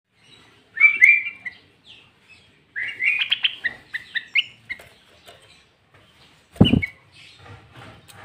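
Sooty-headed bulbul (kutilang) singing: a short burst of bright whistled phrases about a second in, then a longer run of fast whistled notes from about three to four and a half seconds. A loud, dull thump comes with a short call near the end.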